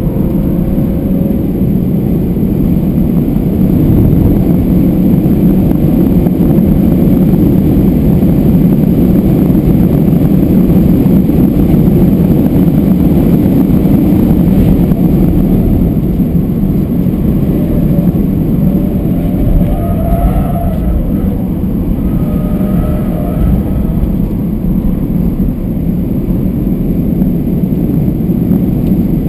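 BMW 320d Touring's four-cylinder turbodiesel engine pulling at track speed, heard inside the cabin together with road and wind noise. A loud, steady rumble that eases a little after the middle.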